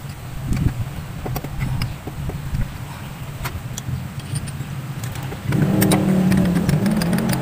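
Scattered sharp metal clicks of a spark plug socket wrench working on a car engine. Under them runs the steady hum of another motor vehicle's engine, which becomes louder about five and a half seconds in.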